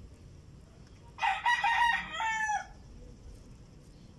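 A rooster crows once, about a second in, a call of several notes ending in a drawn-out note that falls away.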